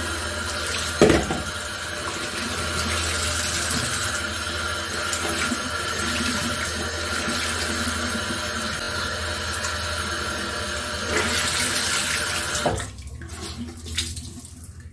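Tap water running into a sink while a dirty cleaning rag is rinsed under it, with a knock about a second in; the water stops abruptly near the end.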